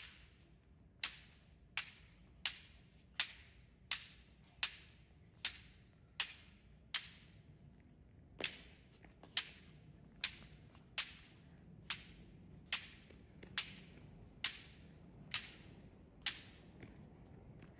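Bamboo shinai striking a target held out by a partner in kendo basic-strike drill: sharp cracks about one every 0.8 seconds, some twenty in all, with one longer pause about halfway.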